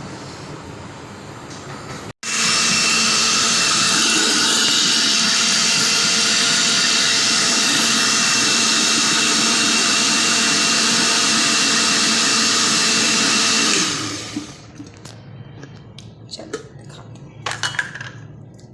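Electric blender grinding a fresh chilli sauce: it starts abruptly about two seconds in, runs at a steady, even pitch for about twelve seconds, then winds down. A few light clicks and knocks of handling follow near the end.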